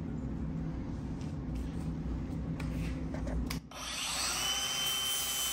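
Low rumbling handling noise, then about three and a half seconds in a cordless angle grinder spins up with a rising whine and grinds a metal mounting bracket, settling into a steady high whine as notches are cut so the bracket clears the compressor's fins.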